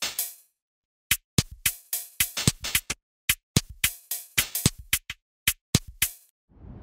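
Music made of sharp, dry drum-machine hits in an uneven pattern, with dead silence between them. Near the end a steady hiss of background ambience fades in.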